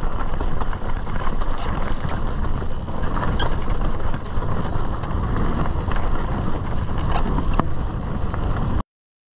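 Mountain bike riding down a dry dirt trail: steady rumble of the tyres on dirt and wind buffeting the microphone, with scattered clicks and rattles from the bike on the rough ground. It cuts off abruptly near the end.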